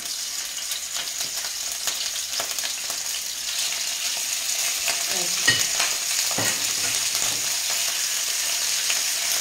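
Boiled octopus sizzling steadily in a frying pan of hot oil and browning garlic, starting as it goes into the pan. Two short knocks sound about halfway through.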